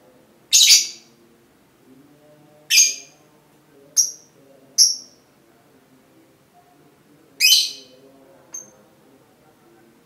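Lovebirds giving short, shrill chirps, six of them at irregular intervals, the first and the one near the end the loudest, over a faint low background hum.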